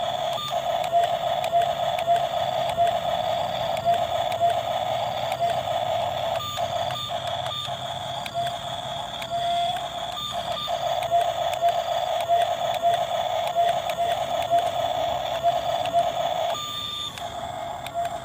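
Toy RC excavator running: a steady electric buzzing whir with scattered clicks, briefly dropping out a few times, and near the end for about half a second.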